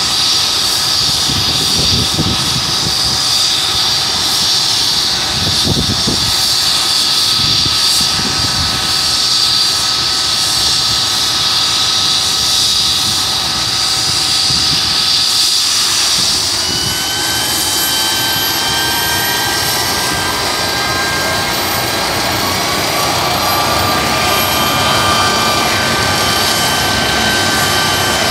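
London's Air Ambulance MD 902 Explorer helicopter running on the ground with its rotor turning, giving a steady high turbine whine. A little past halfway the whine shifts, and several tones climb in pitch over a few seconds.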